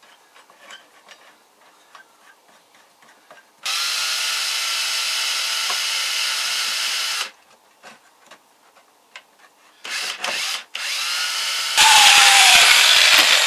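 Red-and-yellow cordless drill running steadily for about three and a half seconds, boring the hole to sink a nut into the workpiece. After a pause and a couple of short starts, a second hand-held power tool runs near the end, louder, its pitch dropping as it bites into the work.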